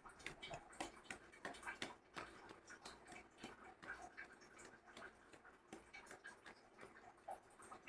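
Faint, irregular light clicks and taps of a kitchen utensil pressing and levelling a layer of hot coconut candy in a plate, over near silence.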